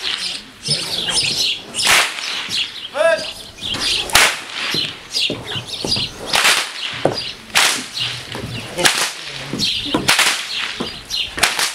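Hungarian herdsmen's whips cracking over and over: sharp, loud cracks about every one to two seconds, seven or so strong ones with fainter cracks between. Each crack is the whip's short plastic tip string (sudár) breaking the sound barrier.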